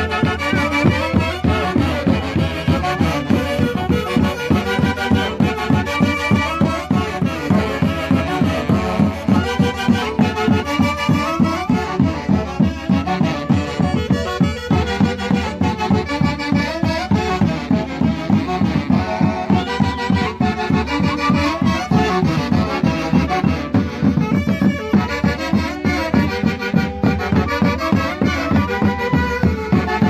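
Andean folk dance music played live by a wind band, with reed and brass melody lines over a steady pulsing beat.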